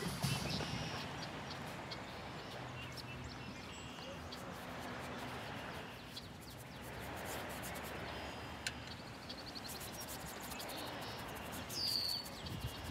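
Quiet outdoor ambience: a steady low rumble of wind on the microphone with faint bird chirps, and one short, clearer chirp near the end.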